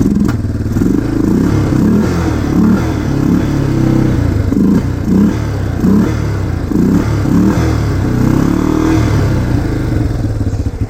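Yamaha Big Bear 350 quad bike's single-cylinder four-stroke engine being blipped again and again, the revs rising and falling roughly once a second, then dropping back to a steady run near the end.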